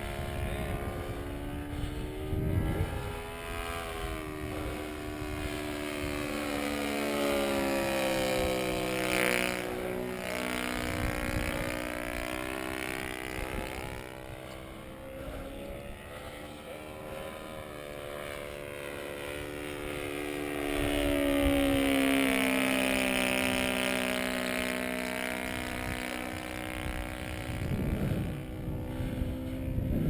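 YS-120 glow engine with a straight pipe, turning a 16x6 propeller on a radio-control aerobatic plane in flight. Its note rises and falls as the plane passes by, loudest about two-thirds of the way through. Wind buffets the microphone near the start and near the end.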